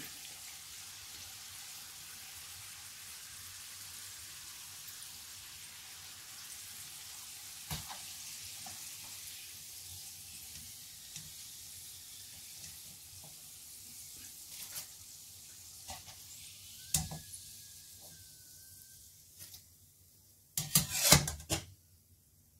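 Sambousek deep-frying in hot oil in a wok, a steady sizzle that slowly dies away as the pastries are lifted out. A few sharp taps of a metal slotted skimmer against the pan are heard, with a louder clatter near the end.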